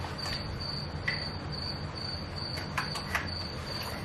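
Crickets chirping in a steady, evenly pulsing high trill, with a few light clicks from the hotel-room door handle and key-card lock.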